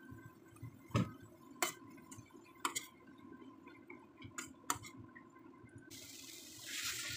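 A spatula clinking and scraping against a stainless steel kadai as chopped vegetables and masala are stirred, with several sharp clinks. Near the end comes a short rush of water poured into the pan.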